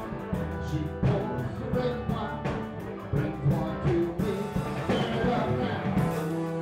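Live band playing rock music: electric guitars over a steady drum beat.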